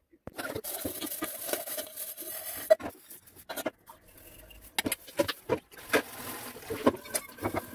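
Water running from a kitchen tap into a steel sink for the first few seconds. After that come dishes being washed: plates and steel pots clinking and knocking against each other and the sink, many separate knocks over quieter running water.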